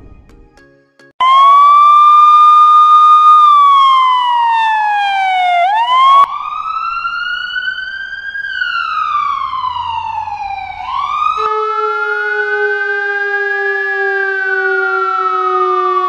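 Recorded emergency-vehicle sirens played one after another: after about a second of quiet, three different wailing sirens, each rising and falling slowly in pitch. The first is the loudest, and the second is an ambulance siren.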